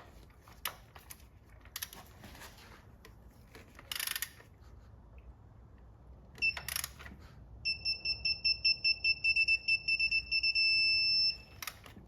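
Digital torque wrench beeping as a motor mount bolt is tightened: a rapid run of short high beeps, then a steady tone under a second long as the set torque is reached. A few sharp clicks and knocks from the wrench and bolt before the beeping.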